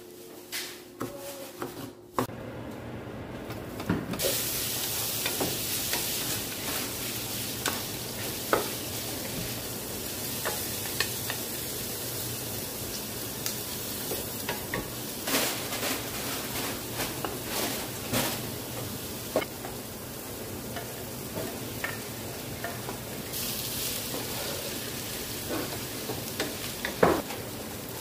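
A knife clicks against a plastic cutting board for the first two seconds. Then pork belly and chopped onion sizzle steadily in a hot frying pan while a wooden spoon stirs them, with occasional scrapes and knocks of the spoon against the pan.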